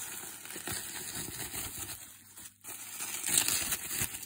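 Plastic bubble wrap crinkling and rustling as hands pull and unwrap it, with a brief lull a little past halfway.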